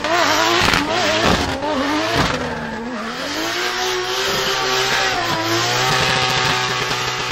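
Drift car engine revving, its pitch wavering up and down with throttle blips for the first few seconds and then held at a steadier high pitch, over loud tyre squeal and skidding as the car slides.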